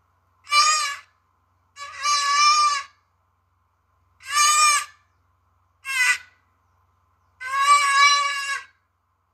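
Mountain reedbuck calling: five separate calls of a steady pitch, each half a second to just over a second long and about a second apart, with a shorter one about six seconds in.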